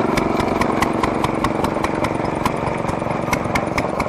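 Antique stationary gas engines running, a steady low engine sound with sharp clicks about five times a second.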